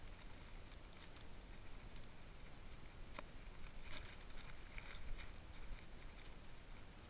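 Wind rumbling low on the microphone, with a sharp click about three seconds in and a few fainter ticks from a spinning reel being handled.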